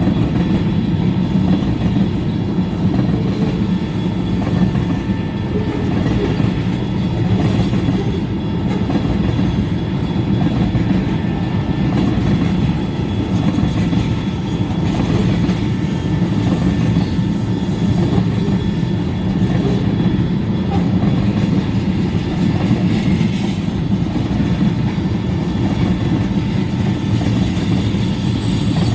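Freight train of ethanol tank cars rolling past, its steel wheels running on the rails in a steady rumble.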